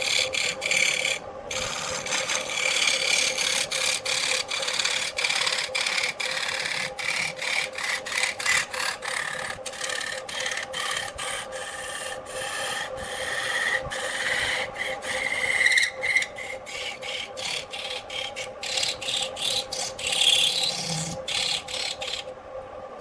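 A wood lathe running with a steady motor hum while a turning tool scrapes and cuts the spinning wood in many short, repeated passes. The cutting stops near the end, leaving the hum.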